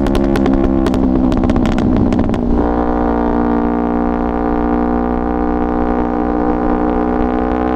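Yamaha R3's parallel-twin engine running through an Akrapovic full-system exhaust with a burble tune. It crackles and pops rapidly for the first couple of seconds, then runs steadily, and the revs begin to climb near the end.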